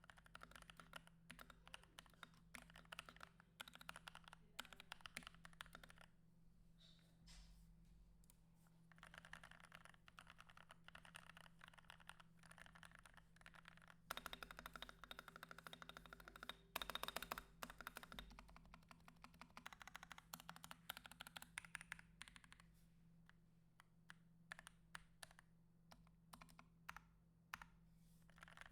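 Continuous typing on an NK65 mechanical keyboard with plate foam, quick runs of key clicks with brief pauses and a louder, faster stretch in the middle. A steady low hum and hiss run underneath.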